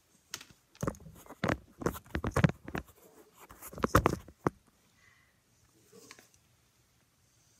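Close handling noise from plastic over-ear headphones being turned over in the hands: a quick run of clicks, knocks and rustles that dies away about four and a half seconds in.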